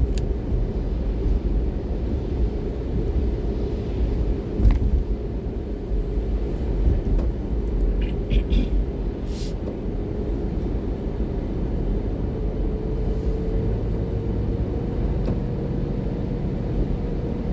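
Car cabin noise while driving: a steady low rumble of engine and tyres on the road, with a faint tone that rises slightly over the last few seconds and a few brief clicks.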